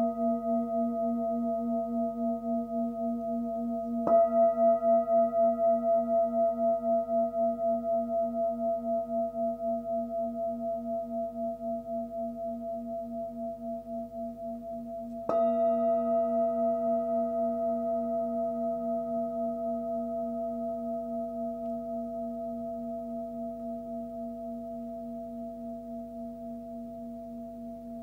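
Nepalese singing bowl, 19 cm across and pitched at about 236 Hz (A sharp), struck twice: about four seconds in and again about fifteen seconds in, with the ring of an earlier strike still sounding at the start. Each strike rings with a steady pulsing wobble and fades slowly.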